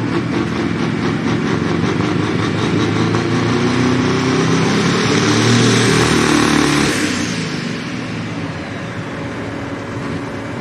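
Pro stock pulling tractor's turbocharged diesel engine running flat out while pulling the weight-transfer sled, building to its loudest about six seconds in. About seven seconds in the throttle comes off: the engine drops to a lower running sound and a high turbo whine falls away.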